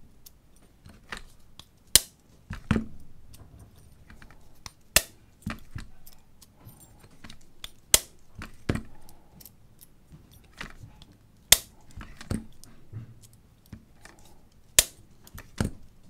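Sharp taps of a bump hammer striking a bump key seated in a padlock's keyway, one hard strike about every three seconds with lighter taps and key rattling in between: repeated attempts to bump the lock open.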